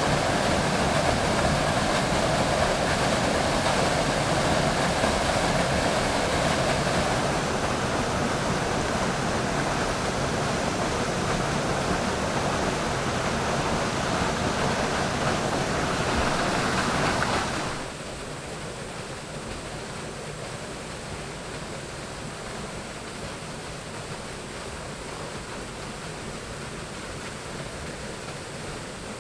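Steady rush of flowing water. A little past halfway it drops abruptly to a quieter, softer rush.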